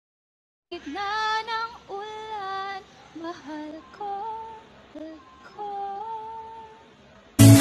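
A woman singing a short melody unaccompanied, with long held notes that waver. Near the end, loud pop music with a beat cuts in abruptly.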